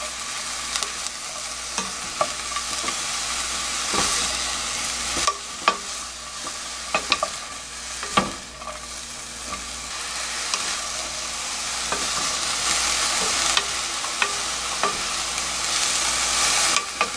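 Wet soybean sprouts sizzling in sesame oil in a stainless steel pot while a wooden spoon turns them over slowly. The hiss is steady, with scattered knocks and scrapes of the spoon against the pot.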